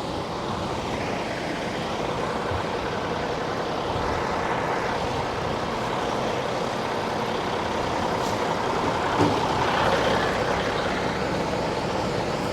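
A vehicle engine running steadily, with an even, unchanging sound.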